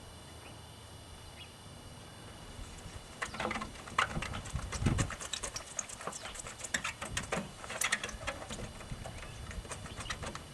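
Hand polishing of a cloudy plastic headlight lens with an applicator pad or cloth. About three seconds in, a quick, irregular run of rubbing strokes and light knocks starts and keeps going.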